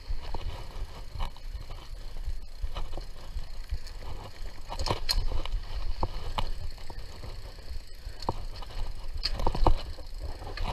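Mountain bike riding over a dirt trail: a steady low rumble of tyres and riding, with irregular knocks and rattles as the bike goes over bumps, the loudest about halfway through and near the end.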